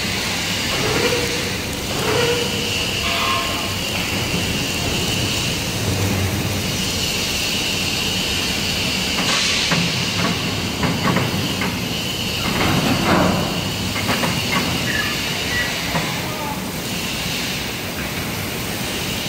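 Steel fabrication shop noise: a steady machine drone under a hiss that starts and stops several times, with a run of short metallic clicks and knocks about halfway through.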